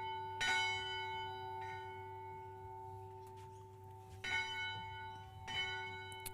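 A bell struck about four times at uneven intervals, the second stroke lighter, each stroke leaving a steady ringing tone that sustains between strokes.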